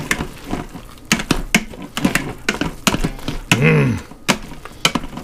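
Wire potato masher clacking and scraping against a stainless steel pressure-cooker pot as potatoes are mashed: irregular sharp knocks, about three or four a second.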